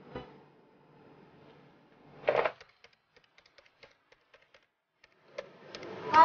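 Light, irregular clicks of a computer keyboard being typed on for about two seconds, after a single brief louder clack about two seconds in.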